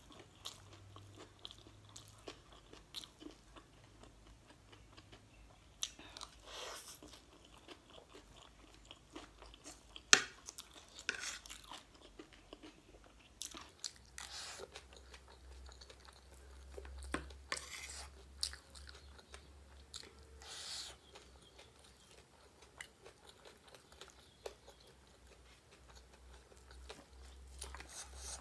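Close-up chewing and crunching of a mouthful of wet, spicy chatpate, with scattered small clicks of a spoon against the plate. A single sharp click about ten seconds in is the loudest sound.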